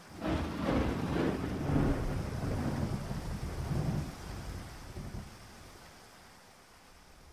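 Rolling thunder over a steady rain hiss: a clap breaks in just after the start and rumbles in several swells for about four seconds before fading back into the rain.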